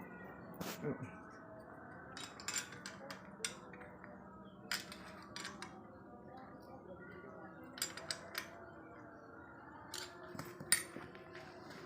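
Irregular light metallic clinks and taps, like steel parts and hand tools being handled and set down, over a low background with faint voices.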